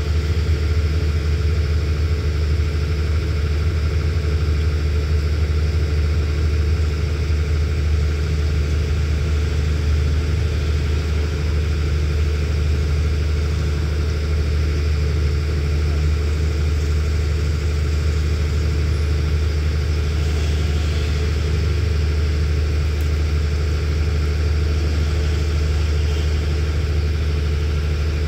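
Steady low drone of a standing passenger train's diesel engine running at idle.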